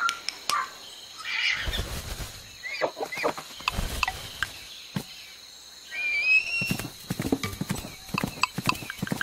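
Horse sound effects: hooves clip-clopping in irregular clicks, with a whinny about six seconds in.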